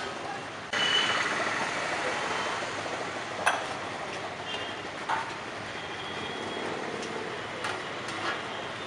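Steady rushing background noise that steps up suddenly about a second in, with three short sharp knocks of metal as the lid of a large aluminium cooking pot is handled.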